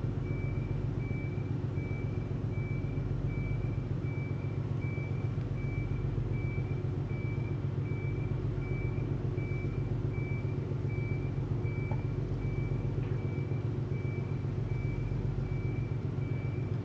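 Steady, low diesel-engine rumble with a fast, even throb, and a faint high beep repeating at a steady rate over it.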